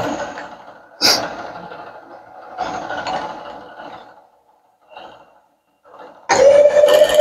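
Bridgeport milling machine's end mill cutting an acetal plastic rod. The cutting noise comes in a few spells that start sharply and fade, drops almost to nothing for a moment, then returns loud and steady with a steady whine about six seconds in.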